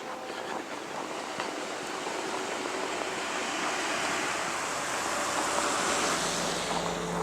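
A vehicle driving past, its tyre noise on the road swelling over several seconds and fading away near the end.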